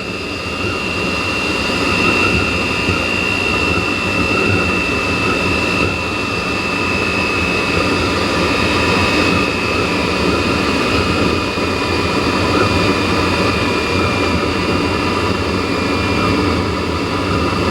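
Chinese diesel heater burning 10W30 engine oil at a low pump rate: a steady combustion rumble under the blower fan's high whine. The whine drifts slowly lower as the fan slows down with rising heater temperature.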